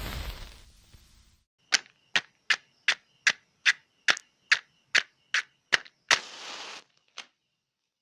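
Match and matchbox sounds. A hiss dies away over the first second or so. Then come about a dozen sharp, evenly spaced clicks, roughly two and a half a second. About six seconds in, a match is struck and flares with a short hiss, followed by one more click.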